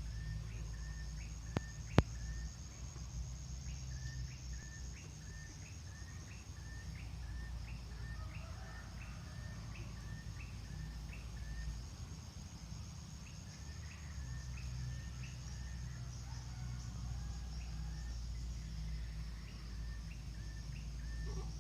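A short call repeated about twice a second, with a few pauses, over a steady high insect buzz. Two sharp clicks come about two seconds in.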